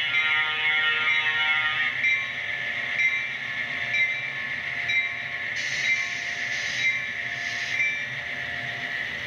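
Sound decoder of an HO-scale F7 diesel locomotive model, played through its small onboard speaker: a chord air horn blast that cuts off about two seconds in, over the diesel engine sound. After that comes a bell-like ding about once a second, with three short hisses as the train rolls by.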